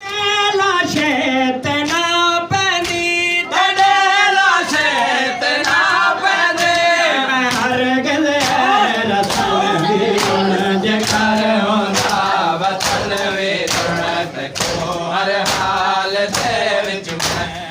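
Voices chanting a noha, a Shia lament, in chorus, with a steady beat of sharp slaps from matam, chest-beating in time with the chant.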